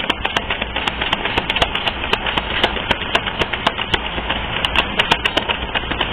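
Tarot cards being shuffled by hand: a rapid, irregular run of sharp clicks and slaps over a steady rustle.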